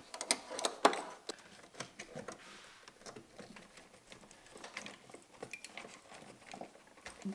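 Scattered small clicks and rustles of hands working an LED headlight bulb into a cramped headlamp housing, with one sharper click about a second in.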